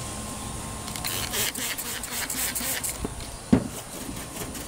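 Trigger spray bottle squirting overspray-removal product onto a truck's painted fender in a quick run of short hissing spurts, then a single sharp knock about three and a half seconds in.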